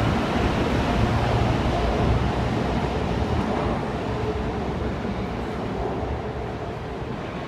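Train running with a steady low rumble and rushing noise that slowly fades.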